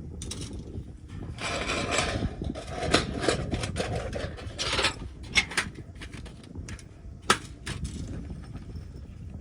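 Objects being handled: scraping and rustling with several sharp clicks, the sharpest about three, five and a half and seven seconds in, over a low outdoor wind rumble.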